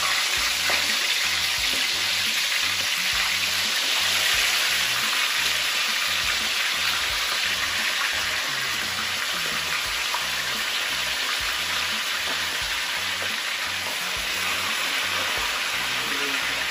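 Chicken pieces frying in hot oil, a loud steady sizzle just after they go into the pot.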